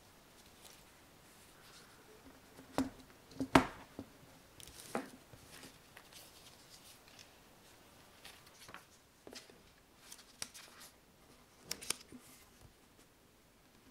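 Hands setting an Apple Magic Keyboard and Magic Mouse down on a wooden desk: a few sharp knocks, the loudest about three and a half seconds in, then lighter taps and clicks of handling toward the end.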